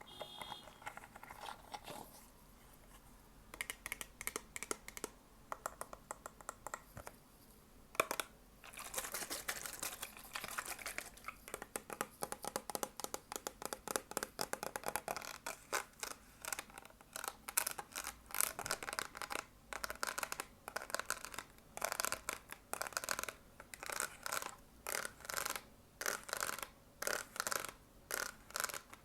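ASMR tapping and scratching on objects: quick runs of light taps, sparse for the first few seconds, then dense and nearly continuous from about eight seconds in.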